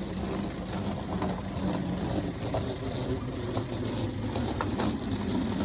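Hard plastic wheels of a rolling suitcase rumbling and rattling steadily over asphalt as it is pulled along, with scattered small clicks.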